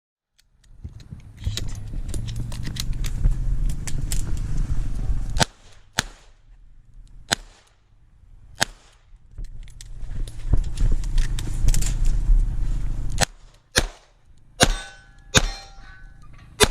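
Smith & Wesson 929 9mm revolver firing single shots at a measured pace, four spread over about three seconds, then several more near the end, the later ones followed by the ring of hit steel targets. Between the strings there is loud rumbling movement noise with clicks as the shooter moves between positions.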